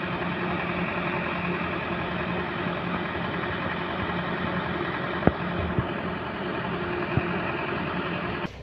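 Heavy machine's engine running steadily at idle, with a sharp click about five seconds in; the sound cuts off suddenly near the end.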